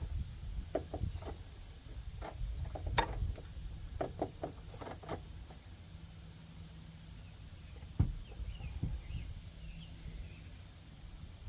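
A series of short, irregular knocks and clunks, with one more about eight seconds in: parts and tools being handled during CV axle removal on an ATV.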